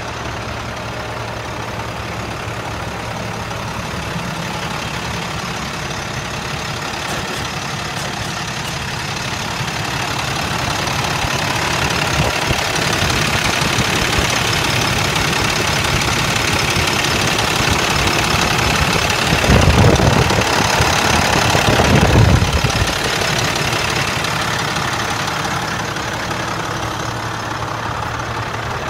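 International DT466 turbo-diesel inline-six idling steadily, growing louder for a while about twenty seconds in, then easing back.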